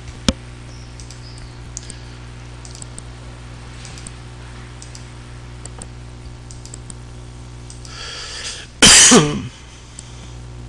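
Computer mouse clicking faintly, one sharper click near the start, over a steady low electrical hum; then a man coughs loudly once, about nine seconds in.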